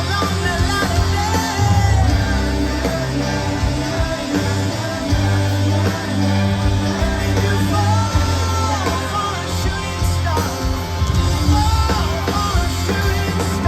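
Live rock band playing the closing section of a song, with held bass notes and a voice singing over it.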